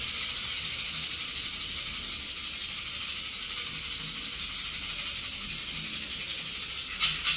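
A rattle shaken in a fast, continuous, hissing roll. Near the end it gives way to sharp, regular shaker strokes about four a second.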